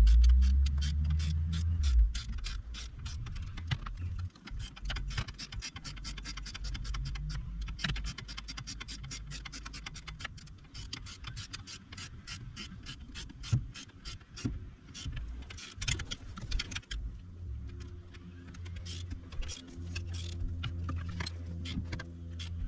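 Hand ratchet wrench clicking in quick, even runs as bolts are driven in. A low steady hum comes in near the end.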